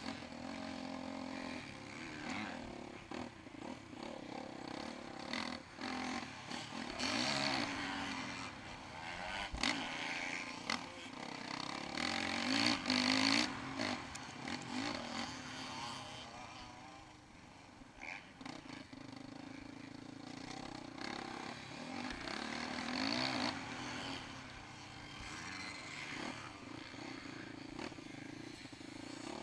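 Yamaha YZ450F four-stroke single-cylinder motocross engine heard onboard while ridden on a dirt track, revving up and dropping back again and again through the corners and gear changes, easing off for a few seconds past the middle.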